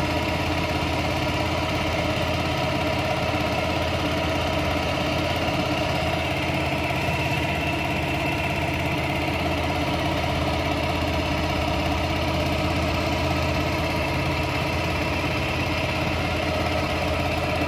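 Homemade outboard motor, a 6 hp four-stroke single-cylinder engine driving through a three-wheeler motorcycle gearbox, running steadily under load as it pushes a fibreglass boat along, with water washing past the hull.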